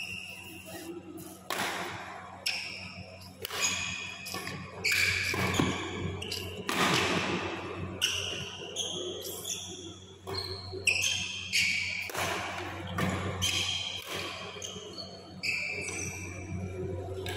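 Badminton rally: rackets striking the shuttlecock again and again, mixed with shoes squeaking and stamping on the court mat. A steady low hum runs underneath.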